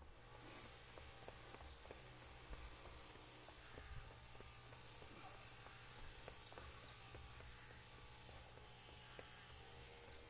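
Near silence: a faint steady hiss and low hum with scattered faint small ticks.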